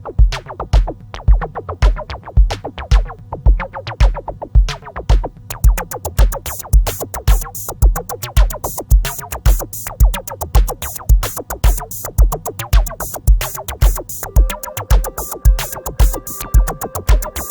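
Electronic background music with a steady drum-machine beat, about two kick-drum hits a second. Fast hi-hats come in about five seconds in, and a synth line joins near the end.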